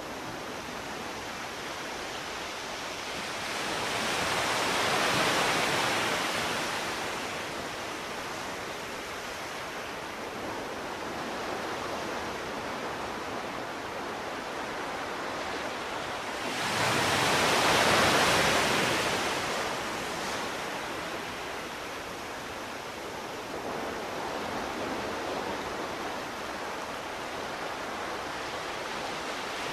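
Ocean waves washing onto a shore: a steady rush of surf with two larger waves swelling and breaking, about five and eighteen seconds in.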